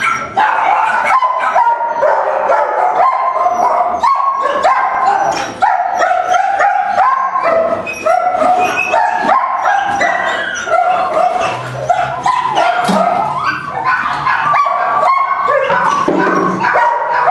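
Dogs barking and yipping without a break, many short calls at different pitches overlapping.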